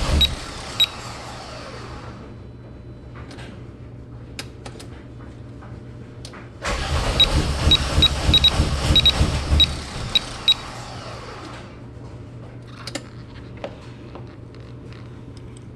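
Starter motor cranking a Volkswagen GTI's VR6 engine, which turns over but does not catch: a crank-no-start. One crank stops just after the start, and a second runs about four seconds from about seven seconds in, with quieter clicks between.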